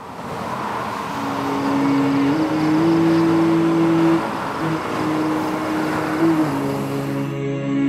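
Highway traffic rushing past in a steady roar, with held low musical notes that step up and down in pitch a few times. The traffic noise cuts off near the end, leaving the notes.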